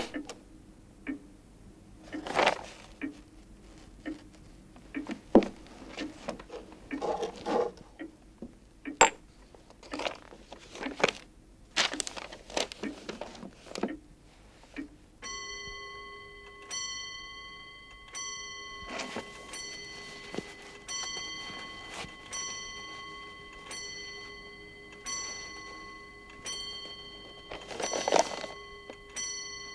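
Scattered sharp knocks and clicks, the loudest sounds, over roughly the first half. About halfway in a clock starts ticking about once a second, with a steady ringing tone held under it.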